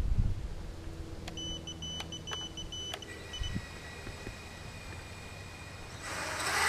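Small racing quadcopter on a 4S LiPo powering up: a run of short high electronic beeps from its ESCs, sounded through the brushless motors, then the motors spinning at idle with a thin high whine. About six seconds in they throttle up and get louder.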